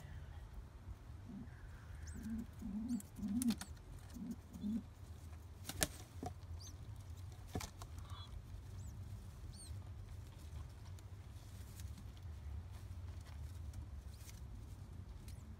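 Domestic pigeons in a nest box. Adult pigeons give a run of short, low coo-like grunts in the first five seconds, then feathers and nesting straw shuffle with scattered sharp clicks and faint high squeaks.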